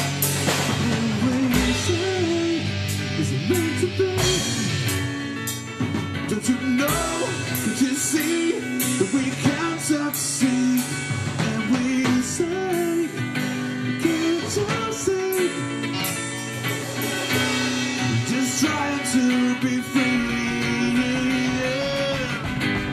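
Rock music from a band: guitars over a drum kit, with a wavering melodic lead line carried above them.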